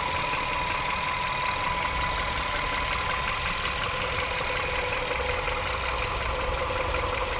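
2015 VW Caddy 1.2-litre engine running, with a steady whirring whine from the gearbox area; the whine shifts lower about five seconds in.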